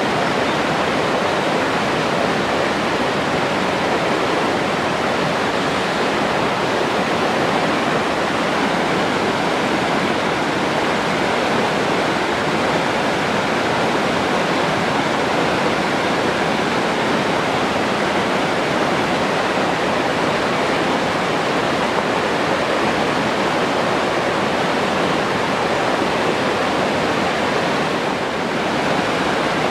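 Forest stream flowing over rocks, a steady, even rush of water.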